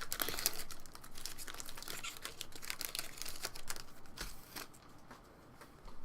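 Hockey card pack wrapper crinkling and tearing as it is opened, in quick crackling bursts that die down about four and a half seconds in.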